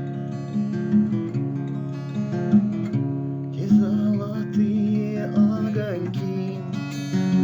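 Acoustic guitar strumming chords in an instrumental passage of a song, with no voice.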